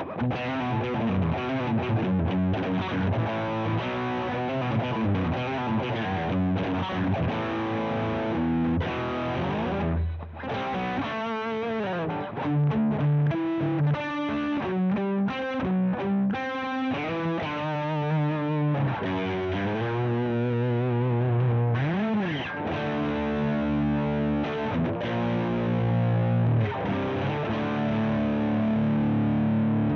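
Electric guitar played through a Joyo Deluxe Crunch, a clone of the MI Audio Crunch Box, giving a crunchy, Marshall-like distorted tone. The playing is a run of chords and riffs with a few bent or sliding notes, including one about 22 seconds in.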